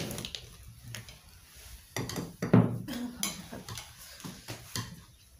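Steel spoon and steel plate clinking as food is served: a handful of sharp clinks and knocks spread over a few seconds.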